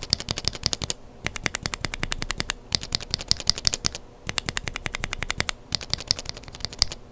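Mechanical keyboard switches with lubed Kailh Burgundy linear stems being pressed rapidly, a fast run of clacks at about ten a second. The clacks come in bursts of a second or so, with short pauses between them.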